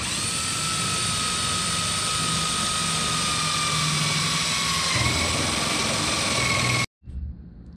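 Cordless drill running steadily as it drives a screw into a sheet-metal patch panel, its whine sagging slightly in pitch under load, then cutting off suddenly near the end.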